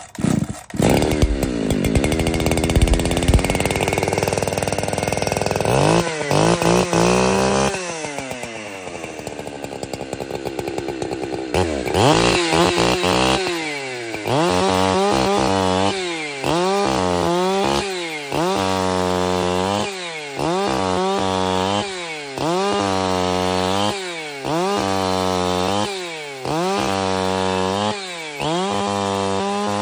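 Loud Husqvarna 365 Special two-stroke chainsaw with a ported muffler, just started. It runs at high revs for several seconds, falls back to idle, then from about a dozen seconds in is taken to full throttle and back about every two seconds while it cuts through a log.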